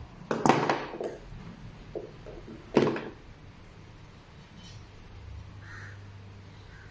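Handling clicks and knocks from working a spark-plug cap and its metal spring off an ignition lead: a quick cluster of sharp clicks in the first second, a few small ticks around two seconds, and one sharp click near three seconds, then only faint handling.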